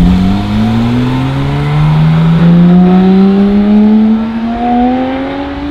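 Porsche 911 GT3's naturally aspirated flat-six accelerating away under load, its pitch rising steadily in one long pull.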